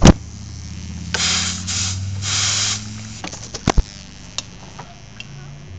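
A sharp click as the air hose is plugged into the boost leak tester, then compressed air hissing in three short bursts as the air-gun lever is squeezed to pressurize the 1.8T turbo intake. A few more clicks follow, over a steady low hum.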